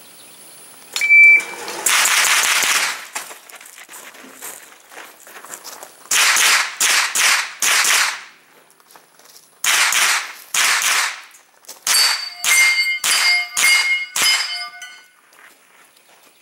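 A shot-timer beep about a second in, then a pistol-caliber carbine fired in quick strings of three to six shots. Steel targets ring after the hits in the last string.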